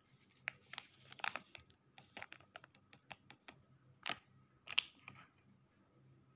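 A seasoning powder sachet crinkles and is tapped as the powder is shaken out onto dry cup noodles, making a string of sharp, irregular crackles and clicks. They are loudest about a second in and again near five seconds in.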